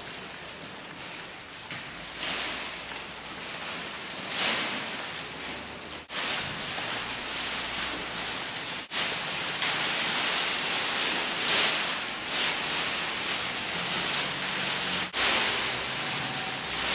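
Crumpled silver foil crackling and rustling continuously, swelling louder and softer in waves, breaking off for an instant about three times.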